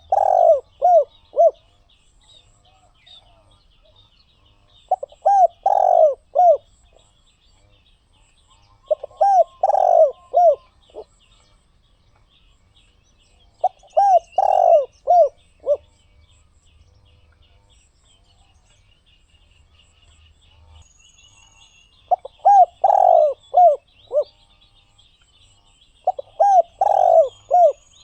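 Spotted dove cooing: six phrases of several short, low coo notes each, repeated every four to five seconds with a longer pause midway. Other small birds chirp faintly and high behind it.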